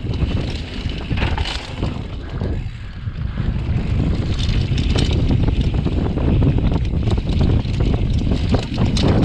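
Downhill mountain bike ridden fast down a dry dirt trail: tyres running over loose dirt and the bike rattling and knocking over bumps, with wind rushing over the microphone. A brief lull about three seconds in.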